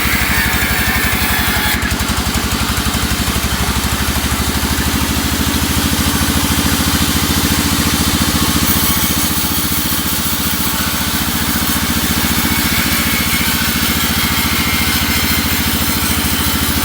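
Sawmill engine running steadily at an even speed, with a low, constant hum.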